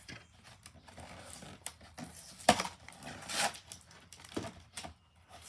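Packaging being handled: scattered rustling and light clicks, with a sharper knock about two and a half seconds in.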